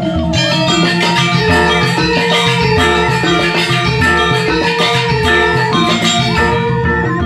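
Balinese gong kebyar gamelan playing a Buleleng-style kebyar piece: bronze metallophones ring in dense, fast figures over kendang drums. The high metallic keys come in loudly just after the start, and the texture thins a little near the end.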